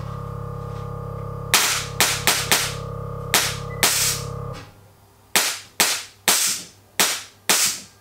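Air suspension dumping air in about eleven sharp, short hissing bursts as the car lowers onto its bags. Under the first half a steady mechanical hum runs, then cuts off abruptly about four and a half seconds in.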